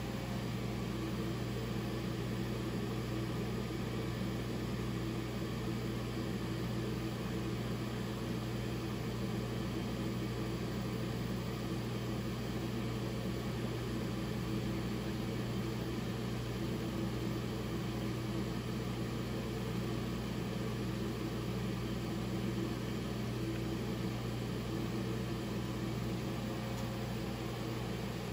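Steady electric hum of shop machinery running, a low mains-type drone with an even hiss over it.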